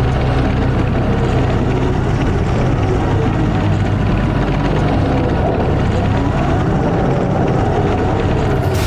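Tank engines and tracks in motion: a loud, steady, deep drone and rumble with clatter mixed in.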